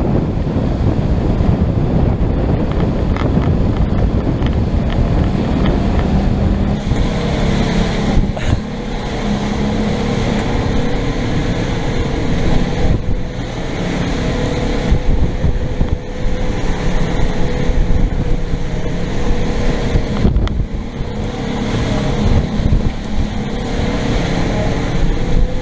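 Small motorboat's engine running under way in rough sea, with heavy wind buffeting the microphone; a steady engine note comes through more clearly from about seven seconds in.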